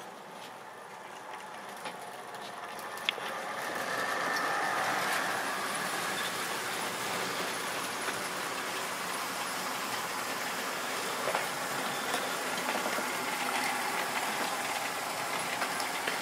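Model railway goods train running on the layout: the locomotive's small electric motor and the wheels on the rails make a steady running noise. It grows louder over the first few seconds as the train comes near, then holds steady, with a sharp click about three seconds in.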